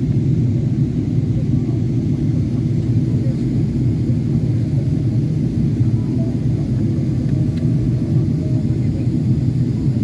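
Steady low cabin drone inside a Boeing 777-300ER in flight, from its GE90 engines and the airflow over the fuselage, heard from a rear economy window seat.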